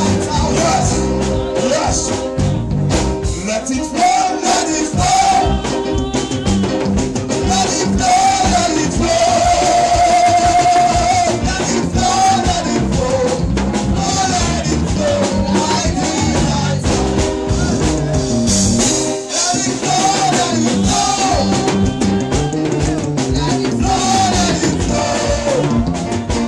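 Live church praise music: singing over an electronic keyboard and a drum kit.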